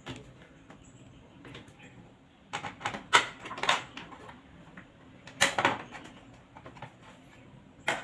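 Plastic outlet cover plate being fitted over the outlet by hand: a series of sharp clicks and knocks, loudest in two clusters about a third and two-thirds of the way through.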